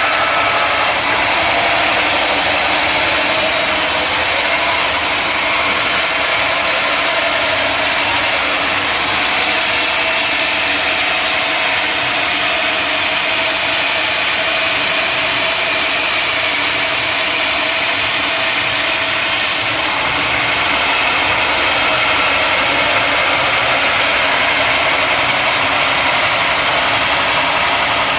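Sawmill machinery running steadily: a continuous, even mechanical noise with no breaks.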